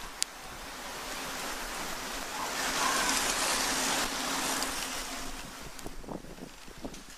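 Wind rushing, swelling to its loudest about three to four seconds in and then easing. A sharp click comes just after the start and a few soft knocks near the end.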